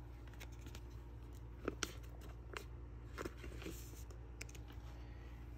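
Baseball cards being handled: a few faint, short clicks and crinkles, spread over a couple of seconds, over a steady low hum.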